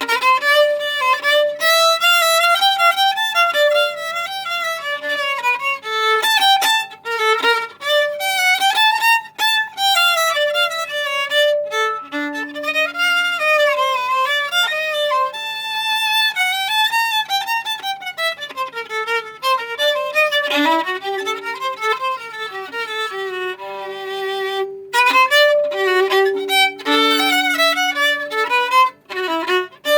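Solo violin playing, a quick-moving melody of many short notes, with longer held lower notes in the second half and a brief break near the end.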